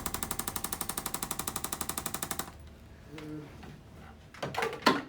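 Handheld electric percussion instrument tapping rapidly and evenly, about twelve strokes a second, then stopping suddenly about two and a half seconds in. Two sharp clicks follow near the end, the second one loud.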